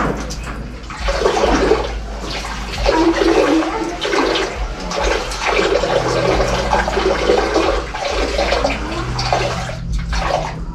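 A man urinating into a toilet: a steady stream of liquid splashing into the bowl, swelling and easing in strength several times.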